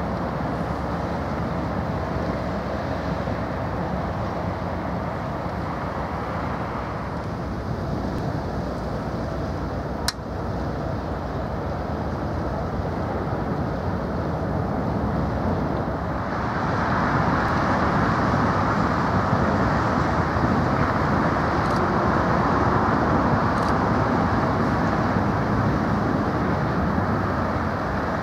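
Steady outdoor background noise, a low rumble under a hiss, growing louder about sixteen seconds in, with one sharp click about ten seconds in.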